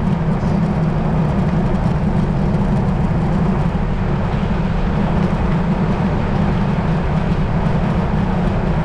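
Wind rushing over the microphone of a bicycle descending a hill at speed: a steady, unbroken low rumble.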